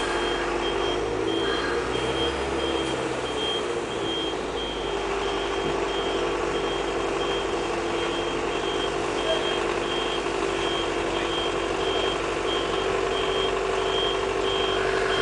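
Reversing alarm giving a steady series of short, evenly spaced high beeps as a Škoda 24Tr Citelis trolleybus backs off a railway flat wagon. Under it is the steady drone of the trolleybus's diesel auxiliary generator, which drives it off the overhead wires.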